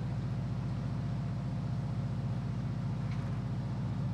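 Aluminium sailing catamaran's engine running steadily under motor: an even low hum with a fast regular pulse.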